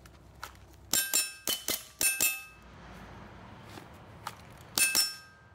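Pistol fired in double taps: three quick pairs of sharp shots with a metallic ring about a second in, then another pair near the end.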